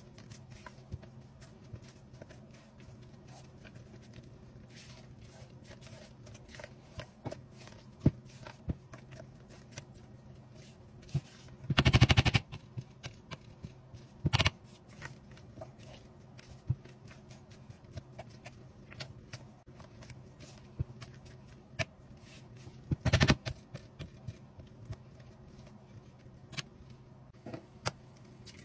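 Hand-mixing creamed butter in a mixing bowl: a utensil scraping and clicking against the bowl in scattered small taps, with two louder half-second rattling bursts about eleven seconds apart. A low steady hum runs underneath.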